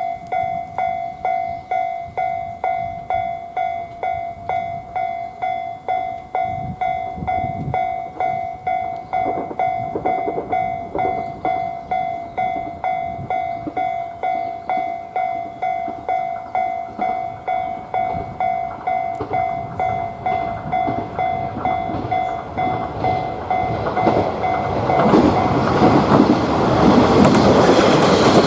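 Japanese railroad crossing's electronic warning bell ringing "kan-kan" at an even beat of about three strikes every two seconds. Over the last few seconds a diesel train comes up to the crossing, its rising rumble drowning out the bell.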